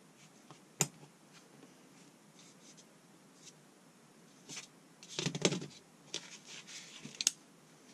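Small steel parts of a vintage SK 1/2-inch ratchet being handled and fitted back together with circlip pliers. A sharp metallic click about a second in, a few light ticks, then a run of scraping and clicking, and another sharp click near the end.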